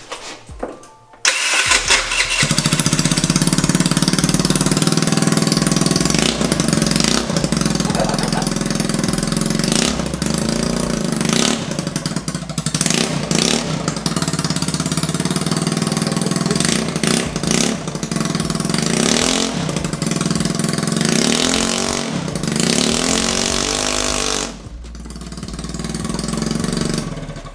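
A GY6 50cc scooter engine started with its muffler removed, catching about a second in and running loud straight out of the open exhaust port. It is revved several times, drops off briefly near the end, then revs back up.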